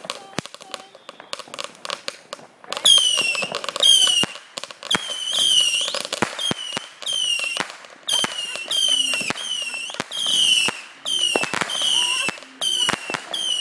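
Consumer fireworks going off: sharp pops and crackling, then from about three seconds in a rapid string of more than a dozen whistling shots, each a short whistle that drops in pitch and levels off, with pops between them.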